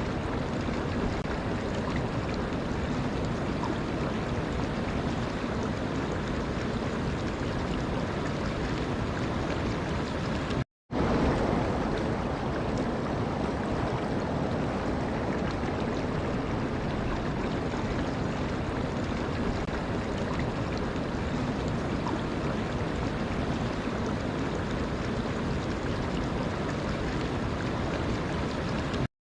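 Running water, a steady rushing with no rhythm. It cuts to silence for a moment about eleven seconds in and again just before the end, where the recording is joined.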